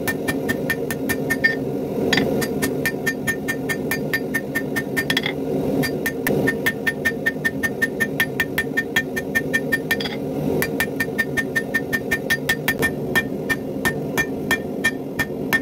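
Hand hammer forging red-hot 5160 coil-spring steel on an anvil: quick, steady blows, several a second, each with a short metallic ring, broken by a few brief pauses. A steady low rumble runs underneath.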